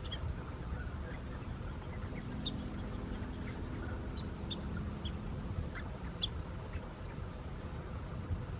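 Outdoor field ambience: a steady low background rush with faint, scattered short high bird chirps. A faint low hum comes in after about two seconds and fades near the middle.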